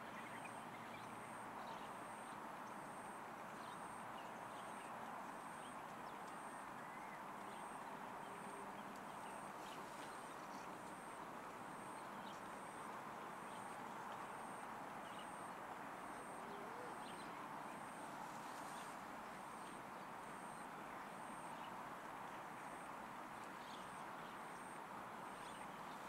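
Steady outdoor background hiss with no clear foreground sound, a faint high ticking repeating about once or twice a second, and a few faint short chirps.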